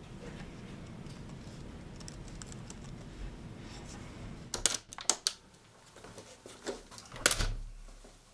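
Typing on a laptop keyboard: scattered key clicks over a low steady hum in the first half, then a quick run of sharper, louder clicks about halfway through and a loud knock near the end.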